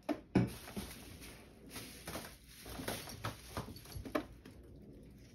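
A cat's paws tapping and scraping on a wooden stool and wooden wall panelling as it stretches up to climb. There are a few scattered soft knocks, the two loudest within the first half second.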